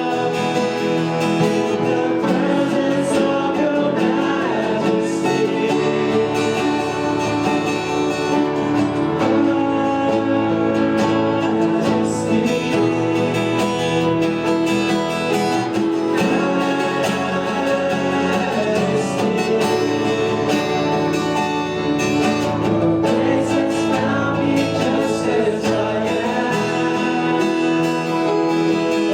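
Worship song in a church service: a band with guitar playing steadily under singing voices.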